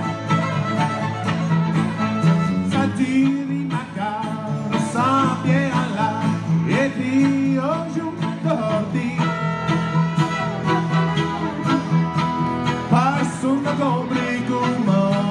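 Two fiddles and an acoustic guitar playing an instrumental Acadian fiddle tune together. The guitar strums a steady backing while the fiddles bow many notes that slide up and down in pitch.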